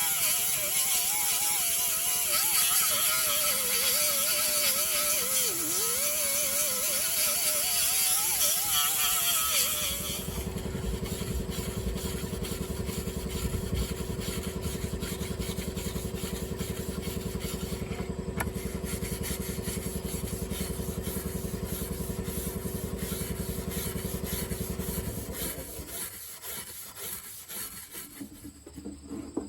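TIG welding arc buzzing. A wavering tone sits over a high hiss for about the first ten seconds, then the buzz turns steady and stops a few seconds before the end.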